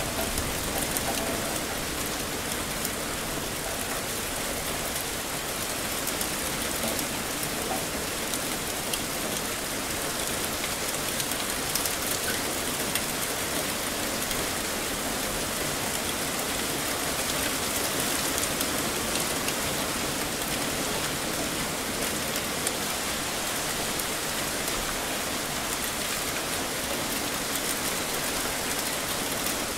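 Heavy rain falling steadily, a dense even hiss of drops hitting surfaces, with fine individual drop ticks.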